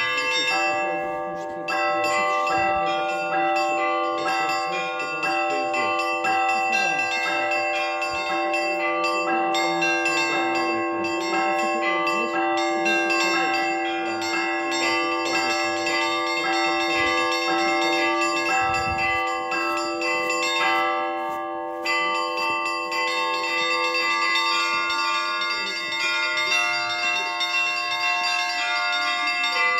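Church bells ringing in a monastery bell tower: several bells of different pitches struck over and over, their tones ringing on and overlapping into one continuous peal, with a steady low bell beneath the higher ones. The set of higher bells sounding changes about two-thirds of the way in.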